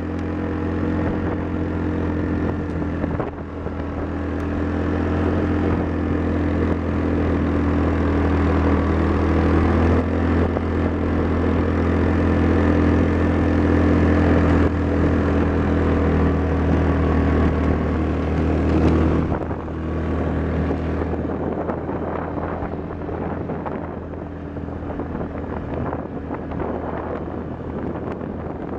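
ATV engine running steadily on a dirt road ride, with wind on the microphone. A little past halfway through, the engine note and level drop as the throttle eases off.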